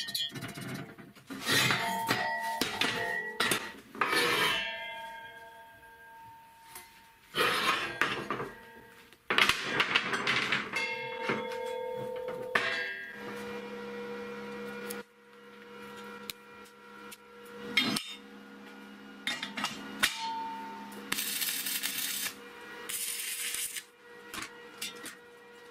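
Steel parts clinking and knocking against a square-tube steel frame as it is assembled, the metal ringing after the knocks. Near the end come short bursts of crackling from arc welding on the frame.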